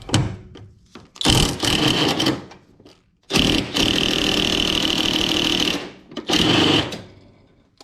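Cordless power tool running in three bursts with a steady high motor whine, backing out a 10 mm bolt: a run of about a second, a longer run of about two and a half seconds, then a short one.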